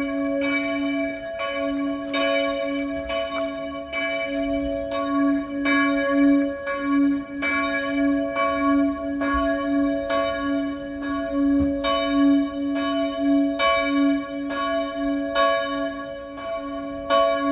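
Church bells ringing for Mass, struck in an even rhythm about once every three-quarters of a second, with a low hum ringing on between strokes.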